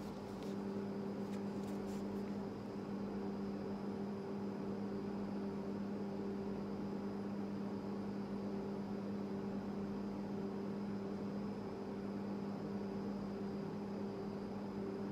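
Steady low electrical hum, with a second higher hum tone over a faint even hiss: room tone from a running appliance or fan.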